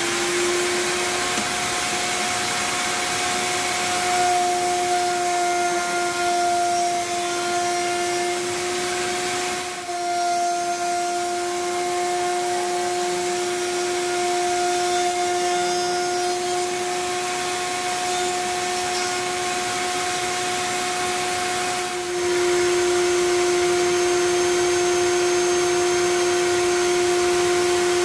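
Router mounted in a router table, fitted with a round-over cutter, running at speed with a steady high whine while small wooden pieces are fed past the bit, with dust extraction through the fence hose. The sound gets a little louder about three-quarters of the way through.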